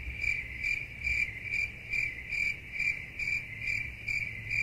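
Cricket chirping: a steady high trill pulsing about twice a second, the stock comedy sound effect laid over an awkward silence.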